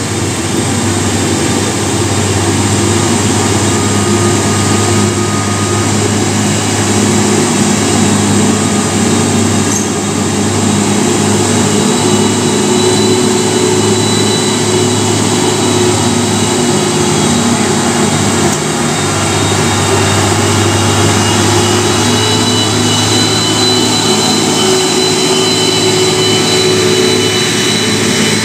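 UD Quester heavy diesel trucks climbing a steep grade under load, one of them carrying steel, their engines running steadily and hard, with a thin high whine above the engine note.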